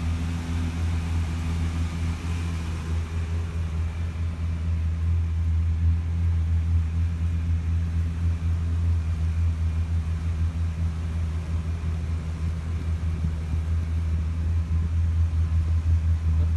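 Yamaha 242 jet boat engine running at a steady idle, an even low drone.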